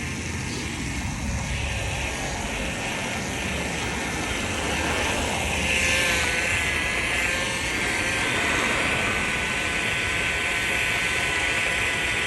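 Electric blender motor running steadily, blending, with a slight rise in level about halfway through.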